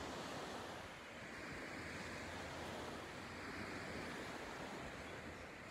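Small waves lapping on the beach: a steady wash of water that eases slightly about a second in and again near the end.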